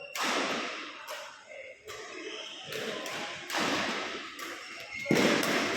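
Storm wind and rain coming in surging gusts, each gust rising and falling away, about every two seconds, with thuddy buffeting.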